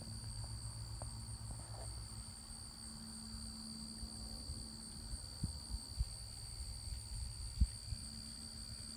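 Wind rumbling on the microphone outdoors, with a few sharper buffets in the second half, over a steady high drone of insects in the fields.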